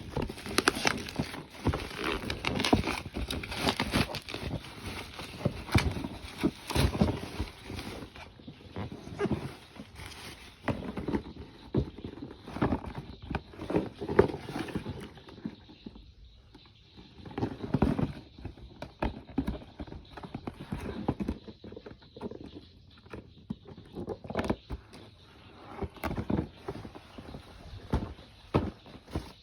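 A hair dryer and its packaging being handled: irregular knocks, taps and rustling of plastic and cardboard, busy at first and sparser later.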